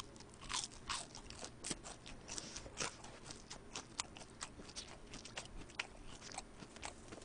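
Close-miked chewing of a crunchy piece of fried chicken: a quick, irregular string of small crunches and wet mouth clicks.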